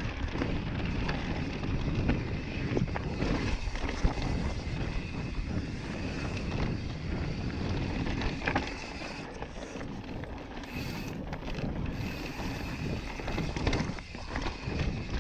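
Wind buffeting the camera microphone over the tyre and trail noise of a Yeti SB5 mountain bike riding down dirt singletrack, with scattered knocks from bumps in the trail.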